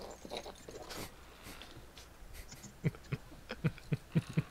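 A person laughing quietly: a run of short, low chuckles, about three or four a second, in the second half.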